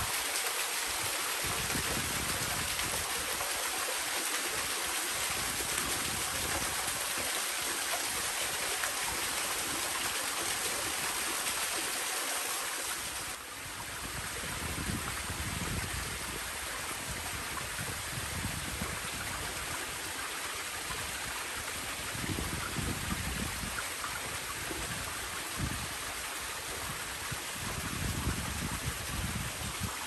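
Water of a mountain stream rushing and splashing over rocks and small falls, a steady rushing hiss. About halfway through it changes abruptly to a slightly quieter flow with more low rumble.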